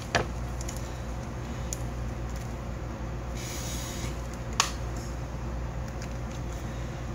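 Steady low hum, with a few light clicks and a brief rustle as audio cables and connectors are handled.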